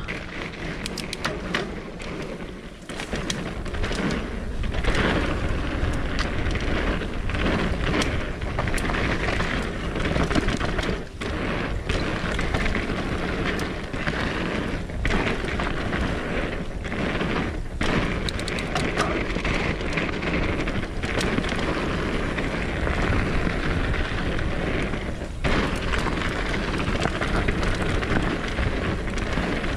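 Mountain bike descending a dirt forest trail at speed: wind buffeting the helmet camera's microphone and tyres rolling over the dirt, with frequent knocks and rattles from bumps.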